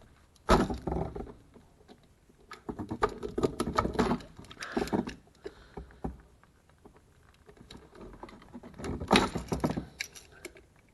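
Metal spanners and pipe fittings clicking, clinking and rattling in three bursts of handling as a clutch hydraulic pipe's compression fitting is worked loose by hand.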